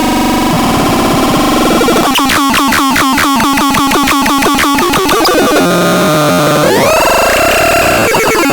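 Synthesizer playing harsh, noisy electronic tones. About two seconds in it breaks into a fast, even pulsing, about five pulses a second, for roughly three seconds. Near the end the pitch sweeps upward and holds.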